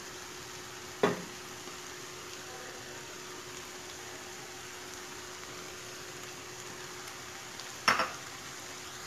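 Turnip curry sizzling steadily in a stainless steel pot over a medium gas flame, its water cooked off. Two short knocks, one about a second in and one near the end.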